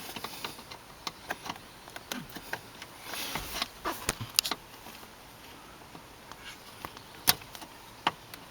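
Wire cutters nibbling through the plastic sheath on the end of a hood release cable, making sharp snips at irregular intervals with some scraping in between.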